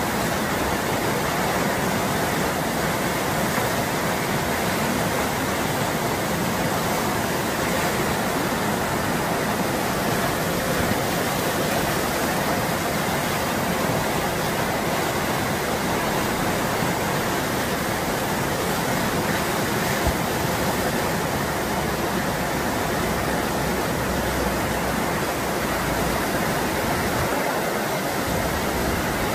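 Steady rushing of whitewater at the Eisbach standing river wave, fast river water breaking and churning.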